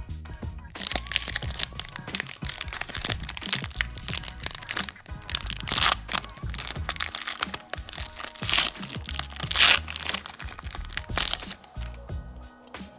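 Foil wrapper of a Pokémon trading card booster pack crinkling and tearing as it is opened, in irregular crackling bursts that stop about a second and a half before the end.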